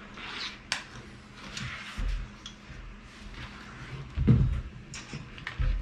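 Handling knocks and clicks of a partly assembled Creality Ender 3 Pro's loosely bolted frame parts being moved and wiggled: a sharp click under a second in, then a few dull knocks, the loudest a little past four seconds in.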